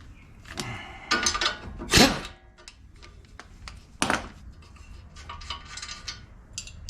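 Steel hand tools, a socket and wrench, clinking and clanking against the strut bolts: a string of sharp metallic knocks, the loudest about two seconds in and another about four seconds in.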